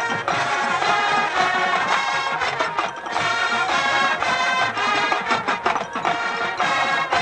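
Drum and bugle corps performing: brass chords held over drumline hits.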